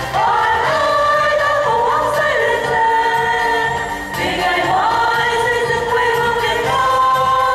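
A group of women singing a song together into microphones, holding long notes and sliding up to new ones every second or two.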